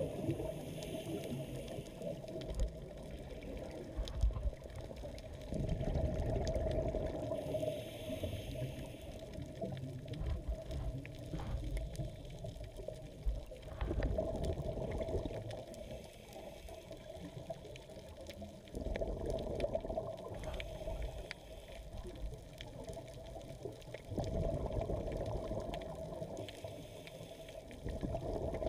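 Muffled underwater sound picked up through a dive camera's housing. A low rumble of water and a scuba diver's exhaled bubbles rises in swells every few seconds, in time with the breathing.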